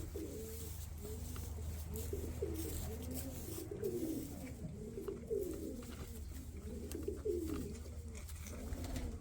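Pigeons cooing, several calls overlapping in a continuous series, over a low steady hum.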